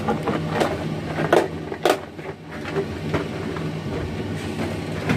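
Sharp clicks and knocks of a plastic jar, its lid and lumps of rock sugar being handled and dropped into a pot, about seven in all, over a steady low hum.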